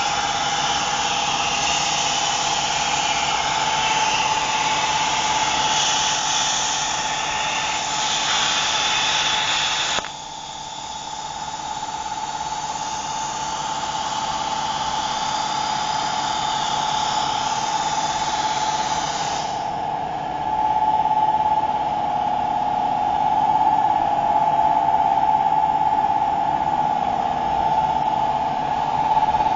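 Home-built CNC machine running: a steady high whine under a hiss of cutting noise that eases about a third of the way in and thins again about two-thirds in.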